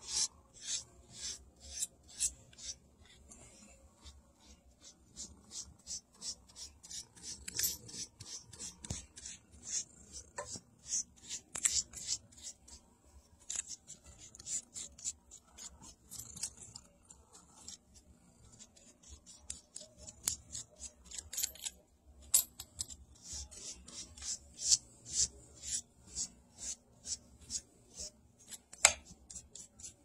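Cat claws raking a corrugated cardboard scratcher: quick rasping scratches, a few a second, in irregular runs with short pauses.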